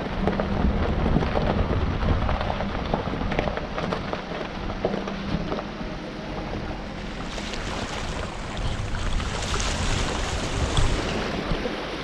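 A vehicle driving slowly through a shallow flooded crossing over bedrock: tyres splashing and hissing through running water over a low engine hum and rumble. The water hiss grows brighter about seven seconds in.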